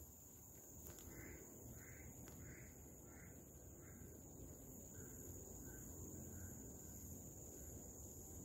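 Cream-coloured giant squirrel calling: a faint run of about a dozen harsh, evenly spaced calls, roughly one every half second or so, fading and dropping slightly in pitch towards the end. A steady high insect drone sits underneath.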